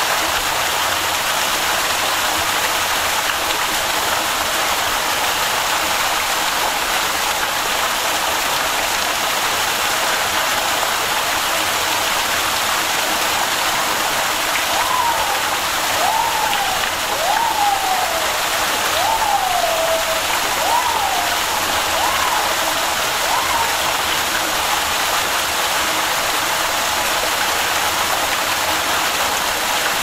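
Steady rush of running water. In the middle come about seven short calls, evenly spaced, each sliding sharply up and then down.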